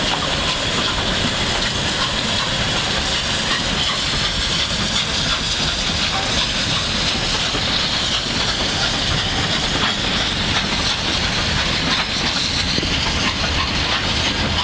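Victorian Railways J class 2-8-0 steam locomotive hauling a train of goods wagons past. The wheels on the rails make a steady rumbling clatter at an even level.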